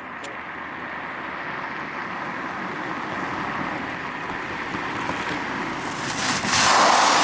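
Car driving along a road: steady road and engine noise that slowly grows louder, then a loud rush of wind noise on the microphone for about a second near the end.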